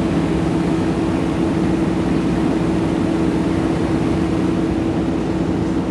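Heavy diesel paving machinery running steadily, a constant low engine drone with a steady hum.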